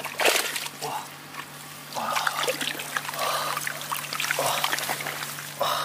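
Hands scooping and stirring in a shallow muddy ditch pool: water trickling and splashing in several short bursts.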